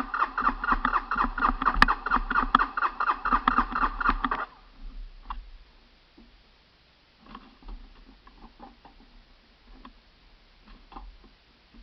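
Honda TRX 300 ATV engine being cranked over by its starter for about four and a half seconds, a steady rhythmic chugging that stops abruptly without the engine catching. The owner smells gas and takes the engine to be flooded. A few faint clicks and knocks follow.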